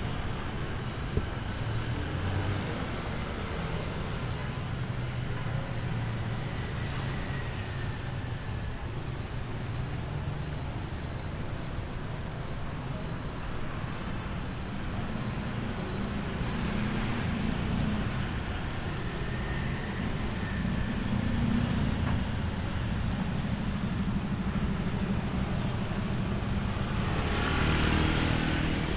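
Street traffic of motorbikes and cars, a steady hum of small engines and tyres passing. One motorbike goes by close near the end, briefly the loudest sound. There is a single brief click about a second in.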